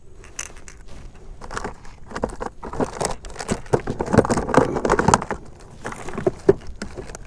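Close handling noise in a kayak: hands working at gear or a fish, a busy run of short clicks, knocks and rustles that is thickest in the middle.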